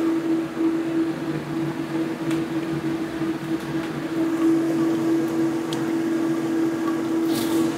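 A steady machine-like hum at one pitch, with a lower hum beneath it, a few faint clicks, and a short hiss near the end.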